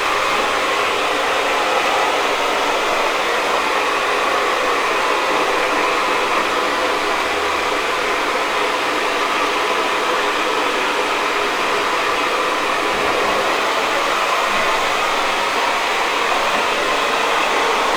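Handheld hair dryer blowing steadily at a constant speed.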